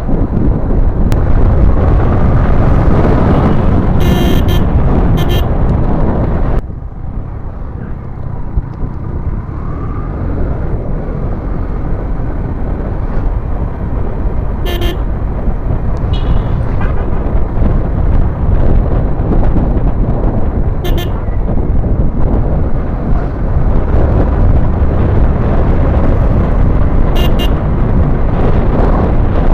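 Wind buffeting the microphone on a moving motorcycle, with short vehicle horn toots from traffic about six times. The wind noise drops suddenly about six and a half seconds in.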